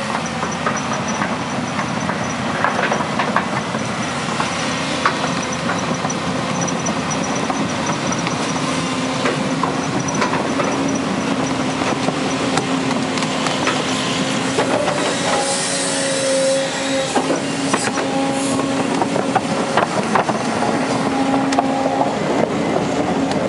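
Volvo 210 tracked excavator travelling close by: the diesel engine runs steadily under many short clanks from the steel tracks, and a steady whine joins about nine seconds in.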